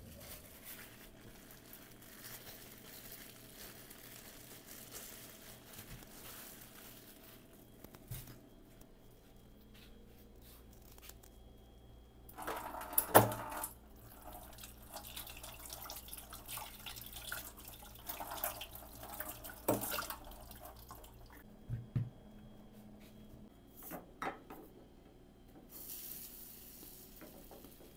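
Water running from a kitchen tap into a sink while dishes are washed by hand, with the clink and clatter of dishes. A sharp clatter about thirteen seconds in is the loudest sound.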